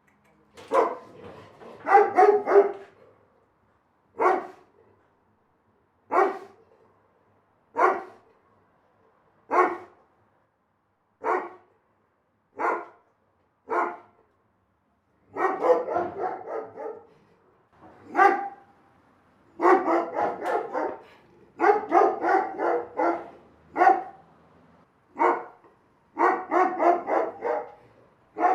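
A big dog barking: single barks about every one and a half to two seconds, broken by several runs of quick repeated barks.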